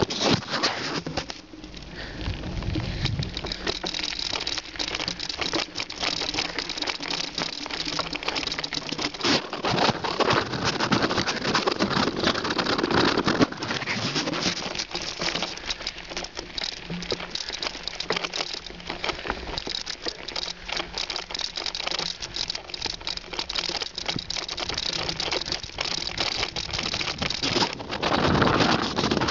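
Bicycle rolling over a rough road, with a continuous crackle of tyres on grit and a rattle of the bike and the camera jostling.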